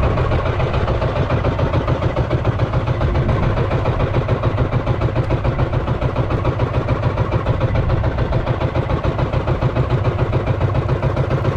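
Engine of a motorized outrigger fishing boat running steadily at trolling speed, a fast even chugging.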